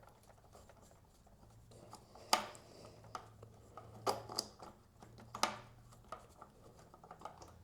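Scattered light clicks and scrapes of hand tools and bolts against the metal headlight guard as the last mounting bolt is worked in, a few sharp taps a second or two apart over a faint steady low hum.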